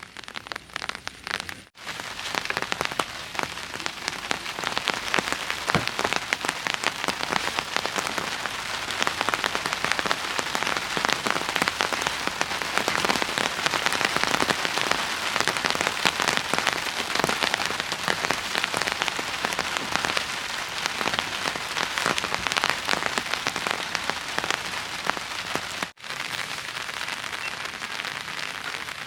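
Steady rain falling, countless drops ticking densely on a surface; the sound drops out for an instant twice, about two seconds in and near the end.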